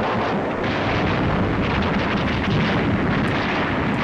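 Battle sound effects on a 1940s wartime film soundtrack: a steady, dense din of explosions and rumble.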